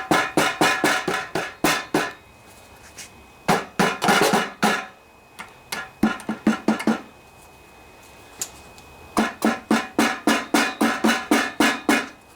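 Rapid runs of sharp metallic taps, about six or seven a second, each ringing briefly, as a hammer taps around the sump cover of a Briggs & Stratton Intek OHV engine to break its gasket seal loose. The taps come in four runs with short pauses between them.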